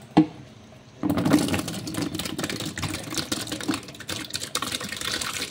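Coloured sago pearls tumbling out of a metal pot into a plastic container: a dense run of small pattering clicks that starts about a second in and stops near the end, after a single sharp knock just at the start.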